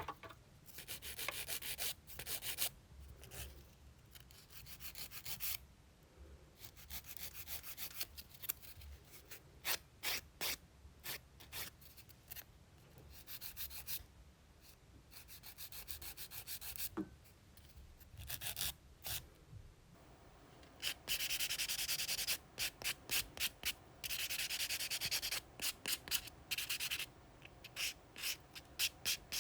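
A nail file rubbing across fingernails in quick back-and-forth strokes. About two-thirds of the way in, the filing becomes faster and nearly continuous for a few seconds.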